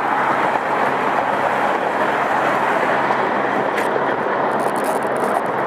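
Steady noise of road traffic on the bridge: an even hiss of tyres with a faint low engine hum beneath.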